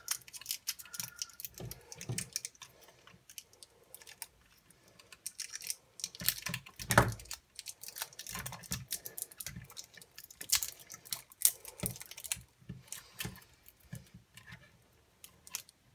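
Irregular small clicks, crinkles and taps of fingers handling a tiny circuit board and peeling insulating tape off its small transformer, with one sharper click about seven seconds in.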